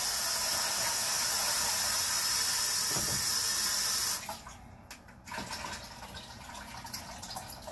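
Kitchen tap running into a sink in a steady hiss, turned off abruptly about four seconds in, followed by a few light handling clicks.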